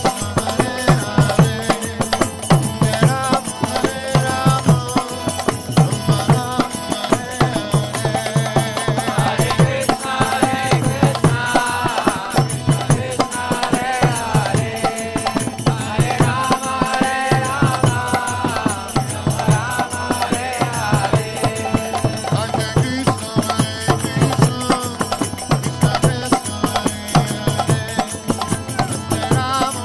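Kirtan music: group chanting of a devotional mantra over a steady beat of mridanga drums and the rattle of kartal hand cymbals.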